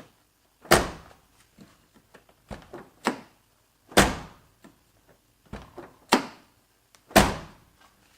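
A car's driver door is opened with its newly installed outside handle and shut three times, each shut a solid slam. Between the slams come the smaller clicks of the handle and latch releasing the door.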